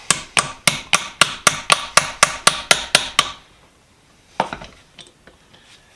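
Hammer blows on a part of a Wilton toddler vise, a quick even series of about four sharp strikes a second for some three seconds, then two single knocks. The part is being driven to slide out but will not move, because it is bent.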